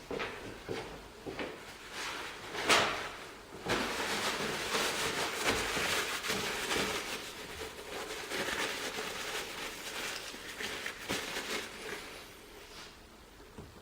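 Handling of metal parts and tools on a workbench during lathe apron reassembly: scattered knocks and clicks, the loudest about three seconds in, with a stretch of continuous handling noise from about four to ten seconds in that fades toward the end.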